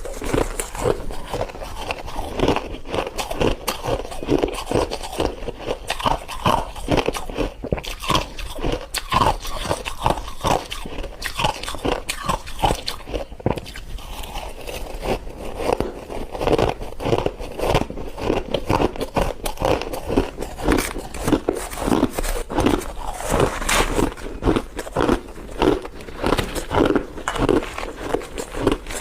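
Close-up crunching and chewing of white freezer frost: a dense, unbroken run of crisp bites and crunches.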